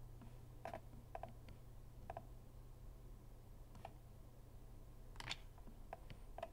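Faint computer mouse clicks, a handful of single clicks spaced irregularly, over a steady low hum.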